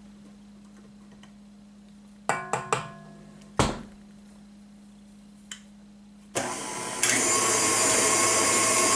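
A few metallic clanks with a short ring and a single knock, then a KitchenAid stand mixer's motor switches on a little over six seconds in and steps up to a higher speed a moment later, running steadily as it beats cake batter.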